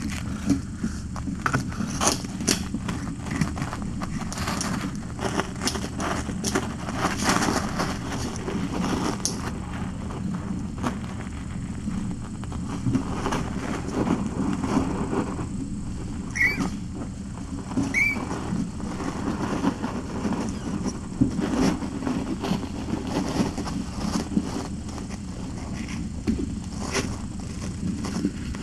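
Kittens scuffling and padding on a fleece blanket close to the microphone, a run of small scratches and rustles over a steady low hum, busiest in the first third. Past the middle come two short high mews about a second and a half apart.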